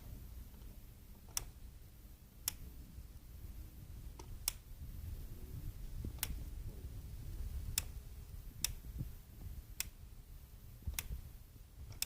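Sharp metal clicks about once every second or so, nine in all at uneven spacing, over a faint low rumble: an Allen key being turned and reset in the bolt as an outboard shift handle is tightened down.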